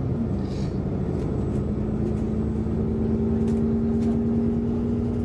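Alexander Dennis Enviro 400MMC double-decker bus under way, heard from inside the passenger saloon: the engine and drivetrain run over steady road rumble. A steady whine comes in about one and a half seconds in, and a higher one joins it about a second later.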